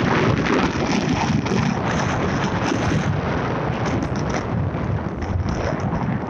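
Wind buffeting the microphone of a moving vehicle, a steady rumbling rush with the vehicle's running noise buried beneath it.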